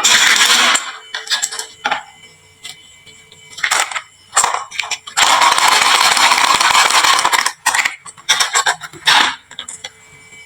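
Marbles rolling and clattering down a wooden marble-run slope, with sharp clicks and clinks as they knock together and land. There is a short burst of rattling at the start and a longer stretch of continuous rattling about halfway through, with scattered single clicks in between.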